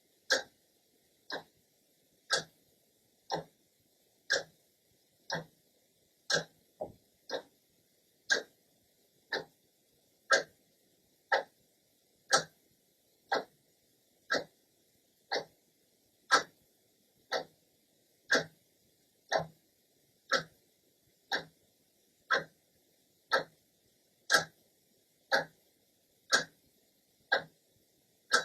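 Clock's second hand ticking steadily, one sharp, dry click each second.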